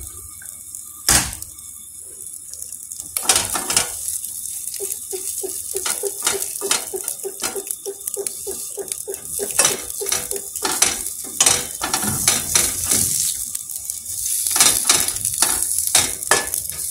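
Food sizzling in a frying pan, with a metal utensil knocking and scraping against the pan. A sharp knock comes about a second in, then a run of regular stirring strokes, about two or three a second, from about five to ten seconds in.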